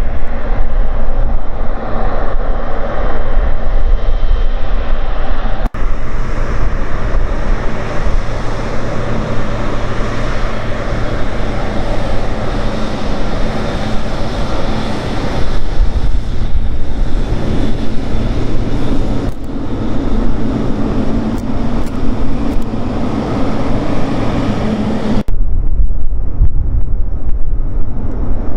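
Boeing 777 freighter's two GE90-110B1L turbofans running at taxi power as it rolls along the taxiway: a steady jet rumble and hiss. The sound shifts abruptly twice, and near the end wind buffets the microphone.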